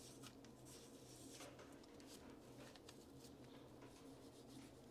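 Near silence, with faint scratching and light ticks from a small tool cleaning out the threads of a lathe chuck and spindle nose.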